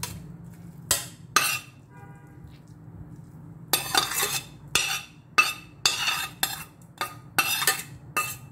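Metal spoon scraping scrambled egg and bell pepper out of a stainless steel pan onto a ceramic plate: two short scrapes about a second in, then a quick run of about eight more from just under four seconds on. A low steady hum runs underneath.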